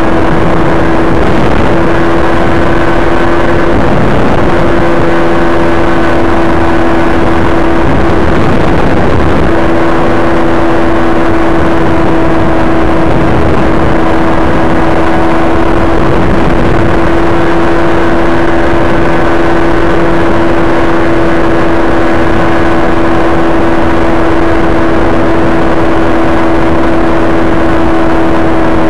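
Rotax 503 two-stroke twin engine of an ultralight trike running at a steady cruise setting in flight, one unchanging drone, with wind rumble across the microphone.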